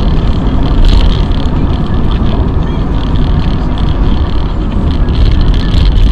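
Steady in-car drone of a car driving on a wet road, as picked up by a dashcam microphone: engine and tyre noise with a hiss of water off the tyres.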